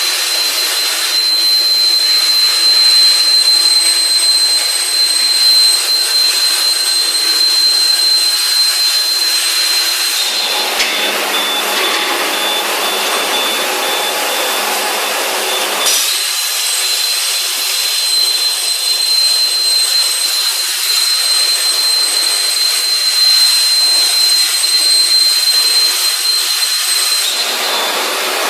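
Industrial metal-cutting machine running: a steady hiss with a thin high whine. The whine drops slightly in pitch about ten seconds in, goes back up about sixteen seconds in, and drops again near the end.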